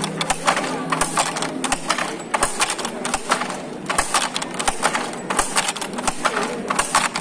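Handloom clattering as cloth is woven: rapid, irregular wooden knocks and clicks from the loom's moving parts.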